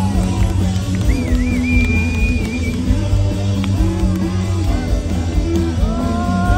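Live rock band with a chamber orchestra playing loud rock music, with electric guitars, bass and drums, heard from within the audience.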